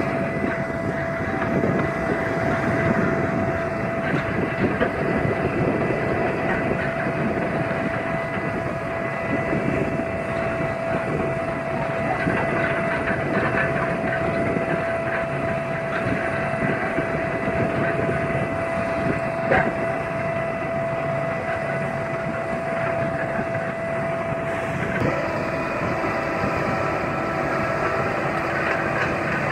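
ROPA Maus sugar beet cleaner-loader running as it picks up beets from the clamp and conveys them into a trailer: a steady mechanical rumble of machinery and tumbling beets, with a constant whine that shifts slightly near the end. A single sharp knock about two-thirds of the way through.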